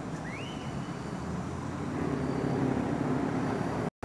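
Steady low outdoor rumble, like distant traffic, growing a little louder about halfway through. A single short rising chirp sounds about half a second in, and the sound cuts out for an instant near the end.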